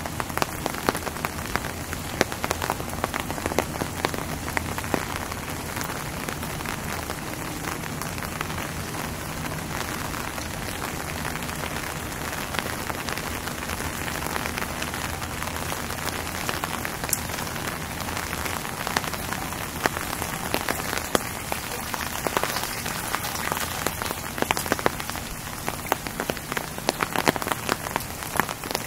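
Steady rain, with the sharp ticks of many drops landing close by.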